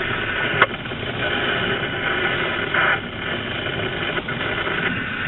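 Scanner radio hiss and static on an open channel between transmissions, steady throughout, with one sharp click a little over half a second in.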